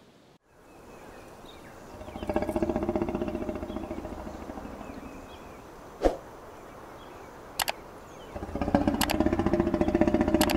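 Lion roaring: two bouts of deep, pulsing grunts, the second starting late and still going at the end. A few sharp clicks fall between them.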